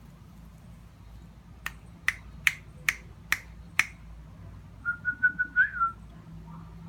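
A person calling a dog in: six quick finger snaps, a little over two a second, then a short whistle on one steady pitch, pulsing a few times and lifting briefly near its end.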